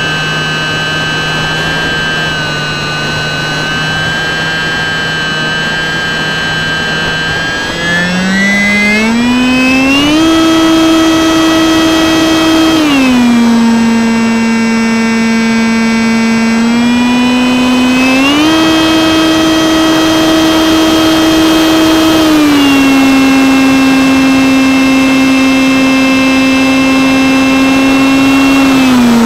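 Electric motor and propeller of a Stryker RC flying wing, heard from a camera on the airframe. It runs at a steady pitch, then rises sharply about eight seconds in as the throttle opens. It drops a few seconds later, rises again, and eases down to a lower pitch, with the pitch following the throttle.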